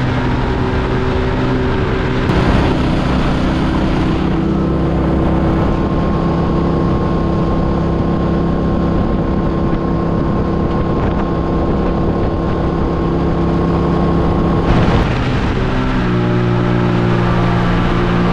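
A small boat's motor running steadily at speed, with wind rushing over the microphone. The engine note shifts abruptly about two seconds in and again near the end.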